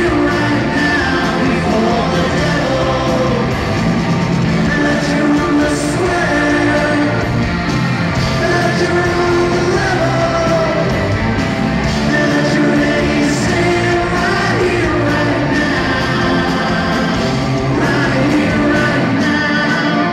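Live hard rock band playing loud and steady, with a lead singer's vocal over drums, electric guitars and keyboards, heard from the crowd in a concert hall.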